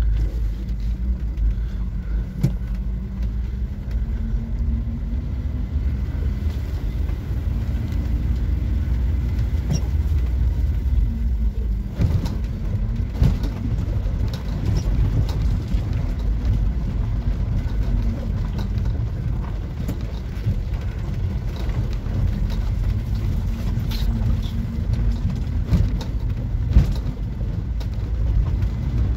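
Camper van's engine running at low speed on a rough dirt-road descent, its pitch slowly rising and falling with the throttle. Scattered sharp knocks from the vehicle over the track, a louder one near the end.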